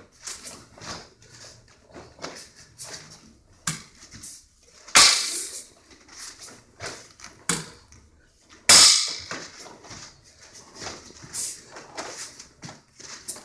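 Snaps and swishes of a karate uniform and bare feet landing on the mats as a kata is performed, in an irregular run of short, sharp sounds. Two much louder sharp snaps stand out, about 5 and 9 seconds in.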